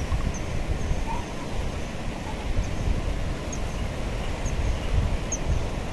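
Wind rumbling on the microphone, with short, high bird chirps repeating every half second or so.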